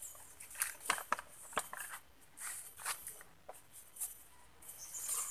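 Leaves and branches of a fruit tree rustling and knocking as a person climbs up through it, in short irregular bursts with scattered small clicks.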